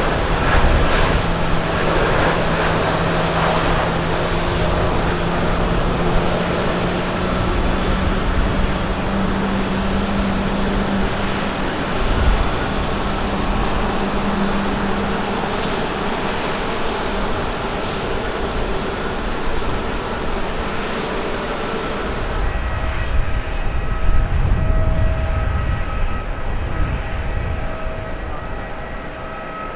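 Boeing 787-8 turbofan engines at takeoff thrust, a steady jet roar as the airliner lifts off and climbs away. About two-thirds through, the sound cuts to a quieter, steadier jet whine of an Airbus A350-900 taxiing.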